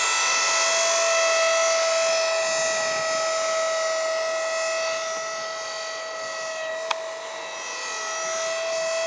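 E-flite Blade SR electric RC helicopter in flight, its motor and rotor giving a steady high-pitched whine at a constant pitch. The whine fades in the middle and grows louder again near the end.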